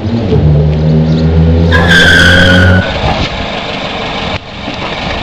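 Car engine running with a steady low hum, then tyres screeching for about a second as the car skids to a stop, cutting off suddenly near the middle. A rougher, noisier engine sound follows.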